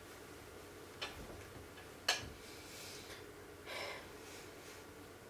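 Handling noise at a microscope: a small click about a second in and a sharper, louder click a second later, then a short soft hiss near four seconds, over a faint steady hum.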